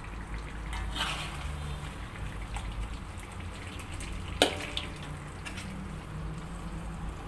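Spatula stirring thick, oily rendang in a metal wok: wet scraping and squelching, with one sharp clank of the spatula against the wok about four and a half seconds in, over a low steady hum. The rendang is fully cooked, its sauce reduced to oil.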